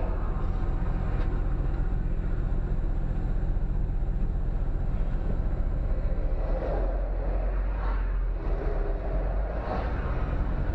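Engine and road noise inside a vehicle driving at highway speed: a steady low hum over an even rumble.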